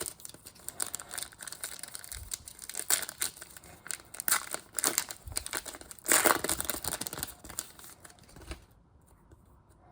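Foil trading-card pack wrapper crinkling and tearing as a pack is ripped open and cards are handled: dense crackling rustle with sharp snaps, loudest about six seconds in, stopping about a second before the end.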